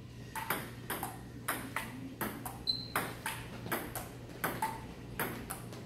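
Table tennis rally: the ball clicking sharply off the paddles and the table in a quick back-and-forth, about three clicks a second, with a slight ring in the room.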